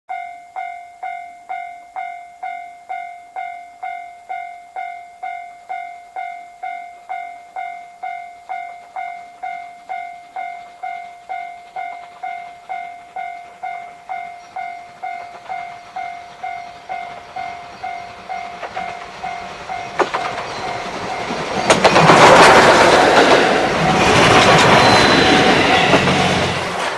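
Level-crossing warning bell dinging steadily, nearly twice a second, and growing fainter. Then, from about 21 seconds in, steam locomotive C57 1 and its coaches pass close by with a loud rush and rumble that covers the bell.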